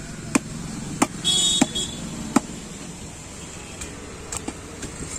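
A heavy cleaver chopping stingray meat against a wooden log block: four sharp chops in the first two and a half seconds, then lighter knocks near the end. A short high-pitched buzzing tone sounds for about half a second between the second and third chops.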